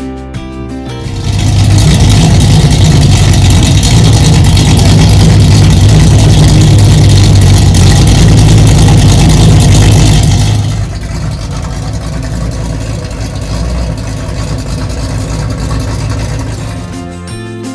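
Overhauled Ford Gran Torino engine running: it comes up loud about a second in, holds there steadily for about nine seconds, then drops to a quieter steady run.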